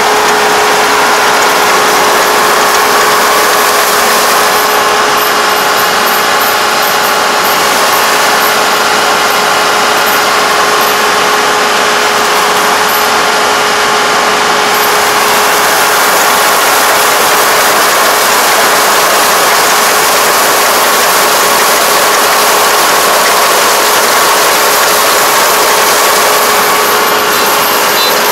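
Four-row rice combine harvester running steadily at close range while cutting lodged rice: its engine and threshing and cutting gear make a constant mechanical noise with a steady pitched hum.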